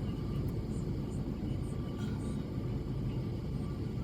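Steady low outdoor rumble with several faint, short, very high, thin bird calls.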